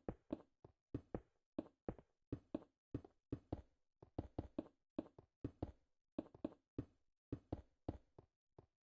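Repeated knocking in quick groups of two to four strikes, stopping suddenly near the end.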